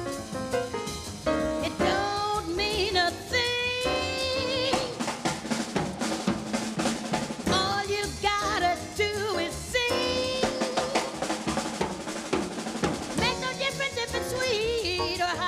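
Live swing jazz from a small band, with the drum kit prominent alongside piano and upright bass, and a wavering melody line over them.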